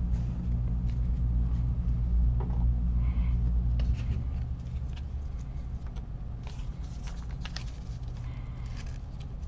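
A steady low hum that eases a little about four seconds in, with faint scattered ticks and rustles of trading cards being handled.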